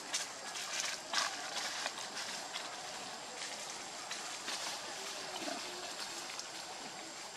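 Steady outdoor background hiss, with a few soft crackles of dry leaf litter shifting in the first two seconds.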